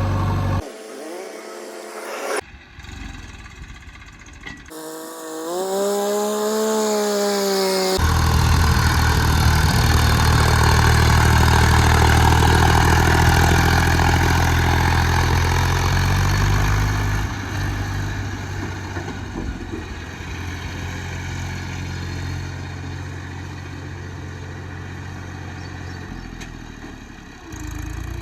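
Heavy diesel engine of earthmoving machinery running. It comes in strongly about eight seconds in, after a choppy start with a brief wavering tone, and settles a little lower after about seventeen seconds.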